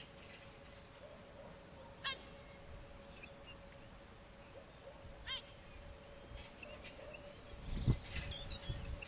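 Small wild birds chirping in short, scattered calls, more frequent toward the end, over a faint steady hum. Near the end a gust of wind buffets the microphone in a brief low rumble, the loudest sound here.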